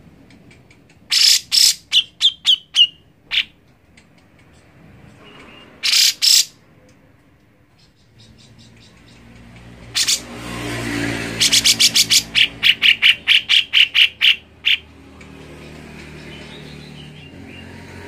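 Cucak jenggot (grey-cheeked bulbul) calling in bursts of rapid, sharp repeated notes. There is a run of about six near the start, a short burst around six seconds in, and a longer run of about fifteen notes in the second half.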